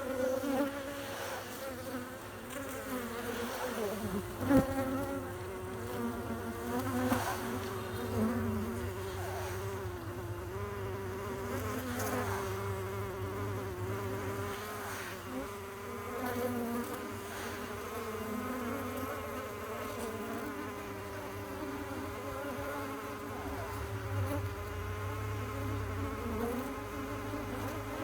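Many bees buzzing together in a continuous, wavering hum, with one brief click about four and a half seconds in.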